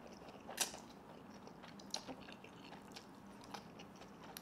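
A person eating spicy instant noodles: a short, sharp slurp about half a second in, then quiet chewing with a few small wet mouth clicks.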